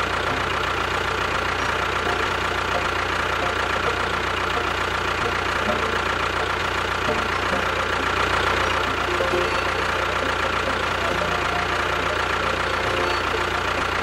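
Tractor engine running steadily at an even, idle-like pace.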